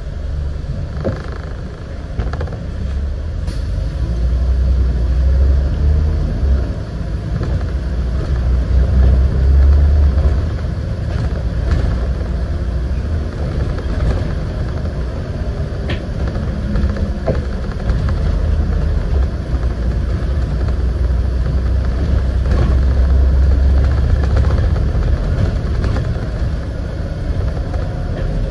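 Scania N94UD double-decker bus on the move: a heavy low engine drone with road noise that swells and eases over several seconds, with occasional brief body rattles.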